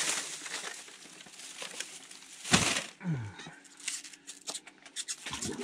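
Plastic bag rustling and crinkling as bait worms are dug out of it, with a sharp thump about two and a half seconds in and scattered light clicks of handling near the end.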